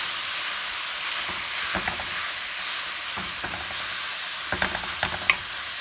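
Ground beef sizzling as it fries in a pan, a steady hiss, with a utensil clicking against the pan a few times as it is stirred, more often near the end.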